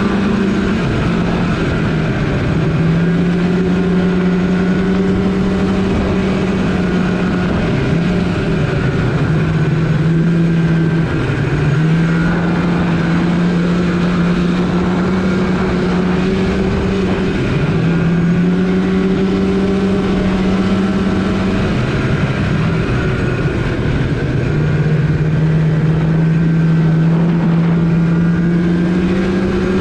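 Polaris RMK snowmobile engine running under way at a steady pitch, which dips and steps back up several times as the throttle eases off and comes back on.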